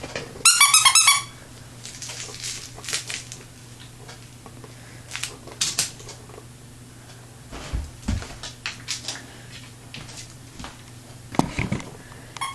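A dog playing with a repaired squeaky plush bone toy. A quick run of high squeaks comes about half a second in, followed by scattered squeaks, crinkling from the toy's crinkle insert, and a couple of thumps.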